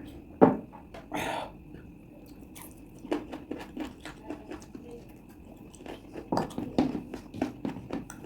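Close-up chewing and smacking mouth sounds of someone eating chicken curry with rice, in two runs of quick wet clicks. A single sharp knock comes about half a second in, and a short rustling crunch just after a second.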